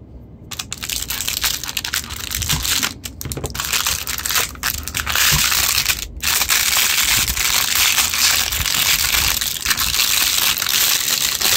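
Clear plastic bag wrapped around a motorcycle LED fog light, crinkled and pulled open by hand. A steady crackling rustle that gets louder about halfway through.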